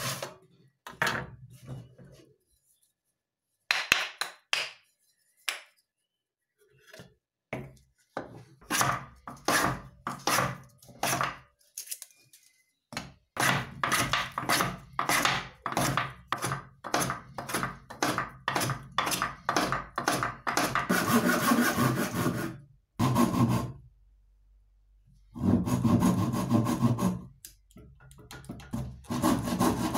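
Japanese handsaw cutting through a block of softwood by hand: after a few knocks of the wood being handled and set, rhythmic rasping saw strokes at about two a second, which run together into faster, near-continuous sawing for a couple of seconds and then resume in short runs near the end.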